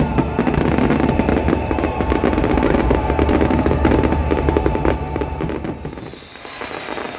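Fireworks display going off: a dense run of crackles and bangs from bursting shells, thinning out and dropping in loudness about six seconds in.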